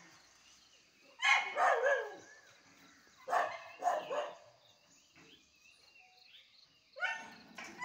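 Pet dog barking in three quick volleys of a few barks each, raising the alarm at a wild elephant.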